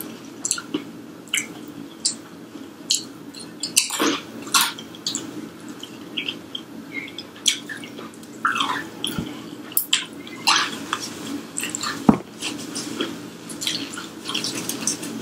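Close-up chewing and mouth sounds of a person eating a fried egg roll: irregular short, sharp clicks, crunches and wet smacks.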